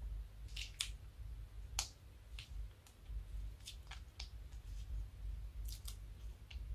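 About a dozen small, irregular clicks and crackles as a plastic piping bag is squeezed, pushing slime out of its tip into a ceramic bowl, over a steady low hum.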